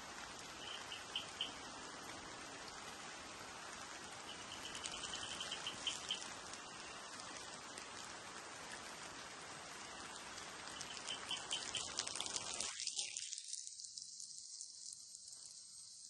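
Steady rain falling on dense leafy foliage, a fine even hiss with patters of drops. Three times a short, rapid high trill of chirps sounds over it. About three quarters of the way through the rain sound cuts out abruptly to a quieter, duller background.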